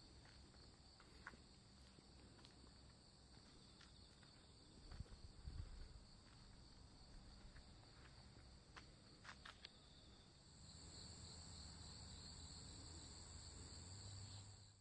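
Faint, steady high trilling of insects such as crickets, growing a little louder for the last few seconds, with a few soft clicks and a brief low rumble midway.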